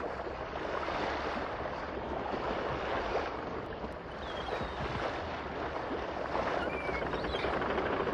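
Steady din of a large ice hockey arena crowd, with a couple of faint short whistles.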